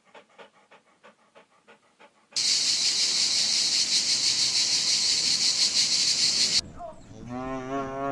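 A sequence of animal sounds: faint rhythmic panting-like breaths at about four a second, then a loud, steady hiss lasting about four seconds, then a short wavering call near the end.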